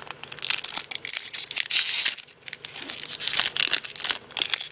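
Foil wrapper of a Japanese Yu-Gi-Oh booster pack crinkling and tearing as it is worked and pulled open by hand, loudest about two seconds in.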